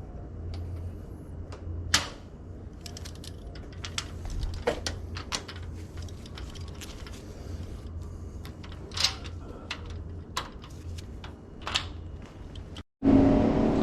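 Scattered small metal clicks and taps of lock parts and hand tools being handled during work on a door lock, over a low steady hum.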